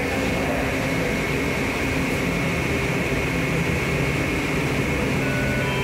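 Washington Metro subway train standing in the station, its air-conditioning and electrical equipment running as a steady hum with a thin high whine over it.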